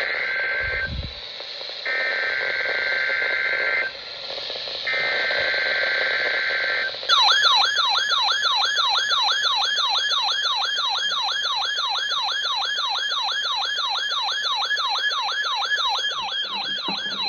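NOAA Weather Radio Required Weekly Test tones over radio hiss: the end of one burst and two more bursts of the SAME digital data header, a raspy two-tone buzz of about two seconds each, then from about seven seconds in a loud warbling alert tone, about three sweeps a second, which cuts off suddenly.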